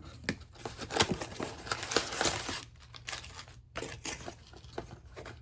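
Packaging being handled: crinkling and tearing of wrapping with scattered small clicks and knocks, pausing briefly a little before four seconds in.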